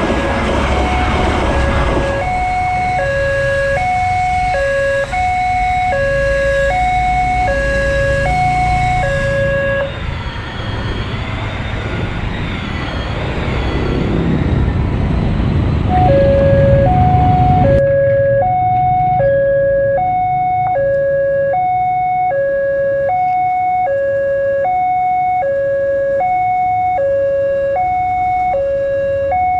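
Railway level-crossing warning alarm, an electronic two-tone signal alternating a low and a high tone about once a second. It stops for several seconds midway, while motorbike engines pass over the crossing, then starts again. In the first two seconds the rumble of a passing train lies under it.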